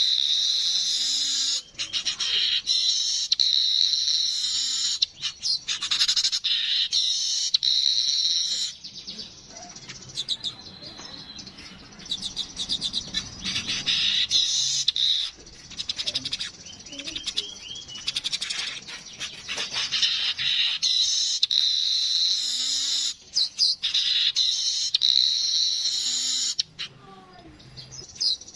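Yellow-headed weaver (manyar) song: bouts of rapid, buzzy chattering and ticking, high-pitched, that stop and start again several times, with sparser ticks in the gaps.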